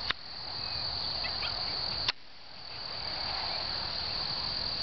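Crickets chirping in a steady, high-pitched chorus, over a low rushing noise and two brief sharp clicks, one at the start and one about two seconds in.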